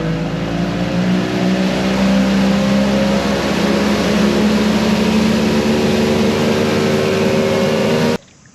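A motorboat's engine running at speed, rising a little in pitch over the first couple of seconds and then holding steady. It starts and cuts off abruptly.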